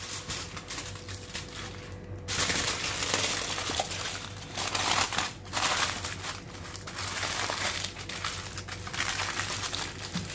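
Aluminium foil crinkling and crackling as hands fold and press it tightly around a banana-leaf-wrapped chicken half, in uneven spells that get louder about two seconds in.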